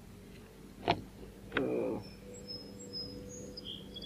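Two sharp clicks about half a second apart, the second followed by a brief scuffling rustle, from hands handling a small fish and working the hook free. Faint bird chirps follow.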